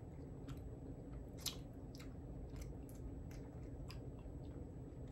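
A person chewing a jelly bean: faint, irregular wet clicks about twice a second, one louder about one and a half seconds in, over a low steady room hum.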